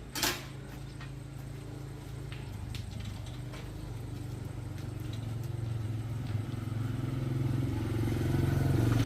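Motorcycle engine running with a steady low hum that grows steadily louder, after a sharp clack about a quarter second in.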